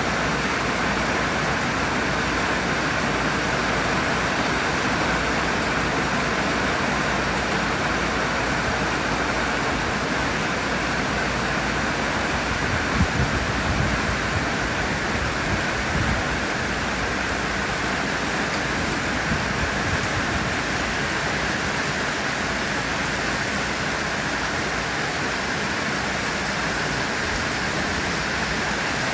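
Heavy tropical rain pouring down in a steady, even hiss, with a few dull low knocks about halfway through.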